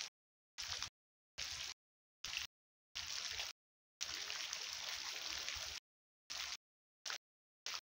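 Water falling from the rock face and splashing into a pool. It is heard in short patches of splashing noise that cut off abruptly, with a longer stretch from about four seconds in.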